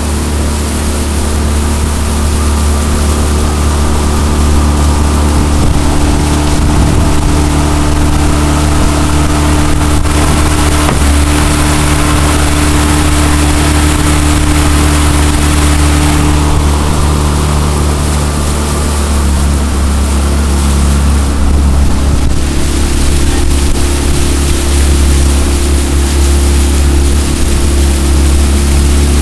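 Jon boat's outboard motor running under way, a steady engine note with water rushing and splashing along the hull. The engine note shifts a couple of times partway through.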